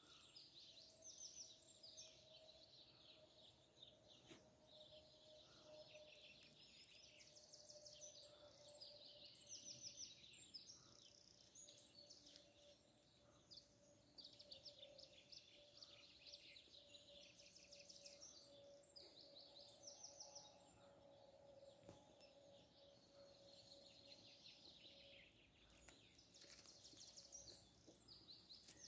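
Faint chorus of small birds chirping in quick, high, repeated bursts, over a steady low hum.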